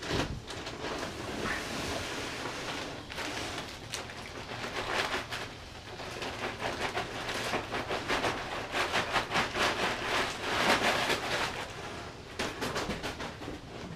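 Brown packing paper crinkling and rustling, with cardboard scraping, as an exhaust midpipe is pulled out of its long shipping box. The crackling grows louder in the second half.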